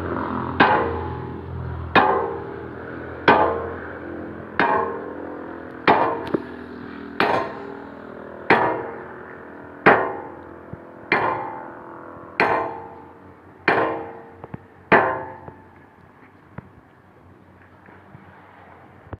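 Hammer blows on steel, each leaving a ringing note, about one every 1.3 seconds, a dozen in all, and stopping a few seconds before the end. This is the work of fitting the bucket pins and bushings on a Komatsu PC200-7 excavator.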